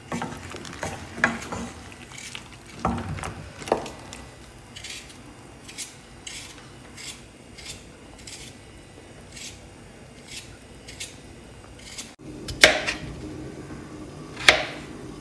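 A wooden spoon stirs chunks of aubergine and potato in a metal pot, scraping and knocking against the pot, over a light sizzle. About twelve seconds in, it gives way to a knife knocking sharply on a cutting board twice as potatoes are cut.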